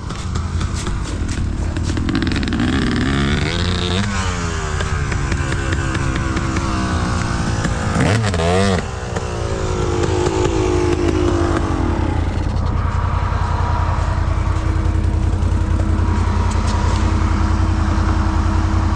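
ATV engine running, revving up and down a few times in the first half, then settling into a steady run for the rest.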